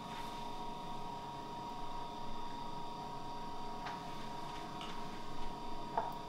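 Steady electrical hum with several steady high tones over low background noise, and a few faint clicks in the second half.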